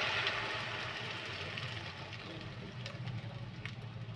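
Egg omelette batter sizzling in hot refined oil in an aluminium pan, the sizzle slowly dying down, with a few sharp crackles in the second half. A low steady hum runs underneath.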